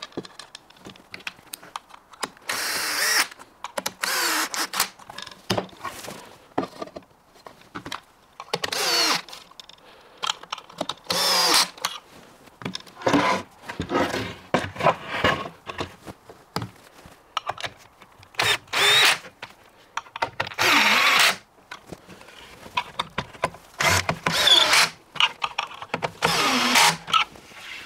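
Cordless drill/driver driving screws into the pre-fitted quick-fit fittings that join the laminated cabinet panels, its clutch set at 14 so it does not over-tighten. It runs in about nine short bursts of a second or less, with knocks from the panels being handled between them.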